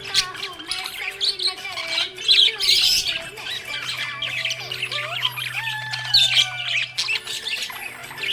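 Budgies chirping and squawking busily, many quick overlapping calls, over a steady low hum.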